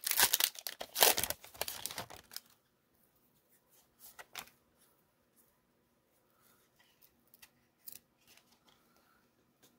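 A trading-card pack wrapper being torn open and crinkled for about two and a half seconds. After that, only faint scattered clicks and rustles from the cards being handled.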